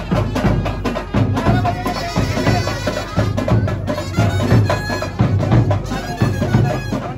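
Live street brass band playing dance music: a loud, steady drum beat under a wavering reedy melody, led by saxophone.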